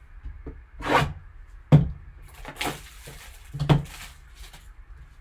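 Sealed cardboard trading-card box being handled and opened: rubbing and scraping of cardboard, with four short louder scrapes and knocks about a second apart, the sharpest a little under two seconds in.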